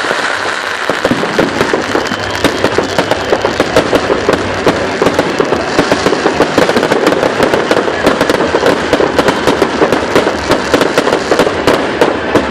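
Fireworks going off in a dense, rapid barrage of sharp bangs and crackles, starting about a second in.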